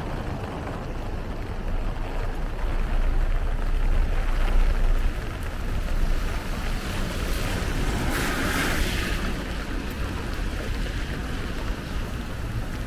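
Rainy street ambience: a steady wet hiss over a low rumble, swelling about four seconds in, with a louder, brighter hiss about eight seconds in, like a vehicle's tyres passing on the wet road.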